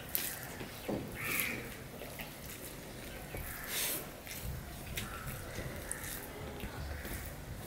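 Fingers mixing rice and fish curry on a steel plate, squelching and scraping irregularly, with close-up chewing and lip smacks.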